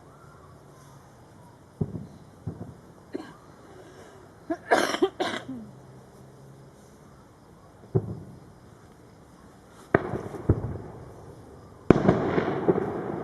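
Distant fireworks shells bursting, a series of separate booms each followed by a rolling echo, the last one about twelve seconds in the loudest and longest.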